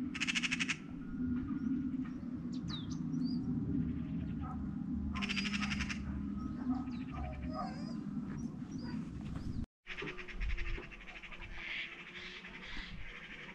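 Birds chirping and calling, with a buzzy trill near the start and another around five seconds in, over a steady low background hum.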